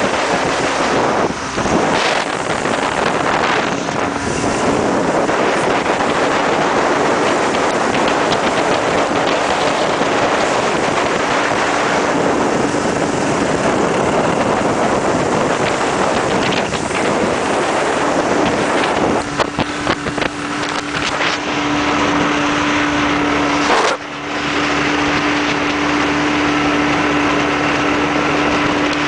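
Motorboat under way: the engine runs steadily under a steady hum, mixed with wind rushing over the microphone and water rushing past the hull.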